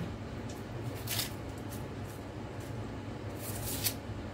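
A kitchen knife scraping and peeling the dry papery skin off an onion: a few brief, scratchy strokes, with a short cluster near the end. A dishwasher runs underneath as a steady low hum.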